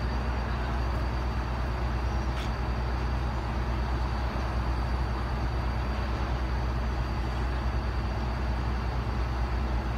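Heavy diesel engine idling steadily, a low even rumble with no change in speed.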